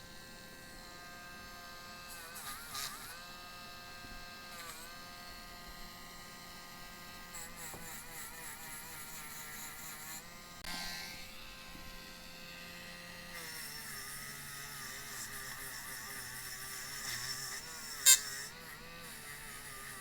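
Small high-speed rotary tool (Dremel) whining steadily as it polishes a die-cast metal toy car body, its pitch dipping briefly each time it is pressed against the metal. A single sharp click near the end.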